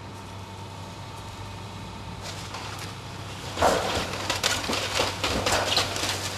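Wooden roof timbers cracking and splintering as a demolition machine pulls a building's roof down: scattered crackles build to a dense run of loud snaps and breaks from a little past halfway. A steady low engine hum runs underneath.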